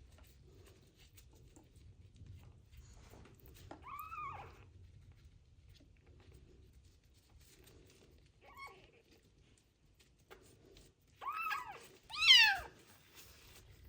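Young kitten meowing: a medium meow about four seconds in, a faint one later, then two loud meows close together near the end, each rising and falling in pitch.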